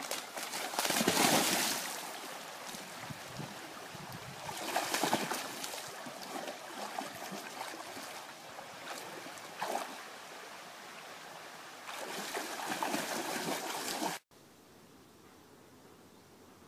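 Water splashing and sloshing as a dog wades and swims, in several louder surges of splashing. About 14 seconds in it cuts off suddenly to a faint hiss.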